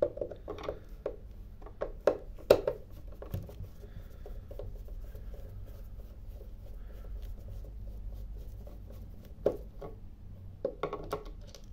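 Screwdriver turning small screws out of a plastic charger case: scattered clicks and scrapes of the bit in the screw heads and of the hard plastic housing being handled, thickest in the first few seconds and again near the end, with a quieter stretch between.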